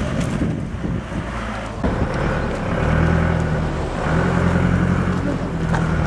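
Motor vehicle engine running steadily, a low hum that comes in about two seconds in and breaks off briefly a couple of times, over outdoor background noise.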